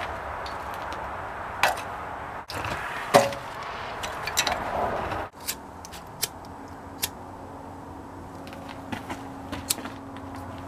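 Handling sounds at a steel forge fire pot as kindling is set in it: scattered knocks and sharp clicks, the loudest about three seconds in, broken by two brief dropouts. A faint steady hum runs under the later part.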